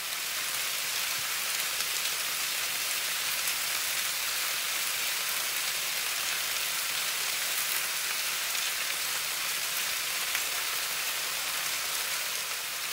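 Sliced white potatoes and onions frying in olive oil in an electric skillet: a steady sizzle with scattered small crackles.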